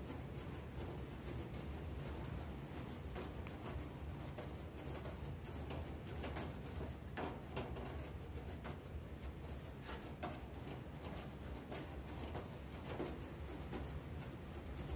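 Grill brush scrubbing metal grill grates: a run of short, irregular scraping strokes cleaning off old burnt-on residue.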